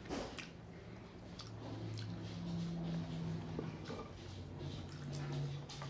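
Faint eating sounds, chewing with a few short clicks, over a low humming background drone that slowly wavers in pitch.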